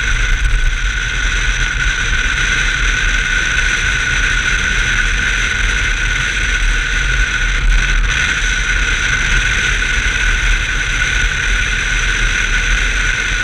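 1990 BMW 325i's inline-six engine running at a steady pitch with a deep rumble and a constant hiss over it, with no rise or fall in revs.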